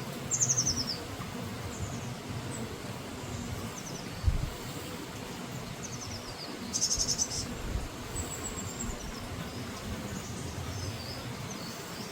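Small birds singing short, high, falling trills in separate phrases a few seconds apart, over a steady low rumble, with a single thump a little after four seconds in.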